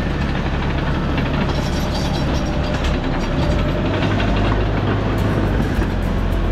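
A heavy engine runs steadily, with a low drone that shifts in pitch about three and a half seconds in.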